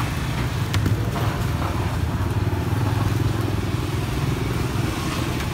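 A motorcycle engine running steadily, its low hum swelling a little in the middle, with a few light clicks of plastic food containers being handled.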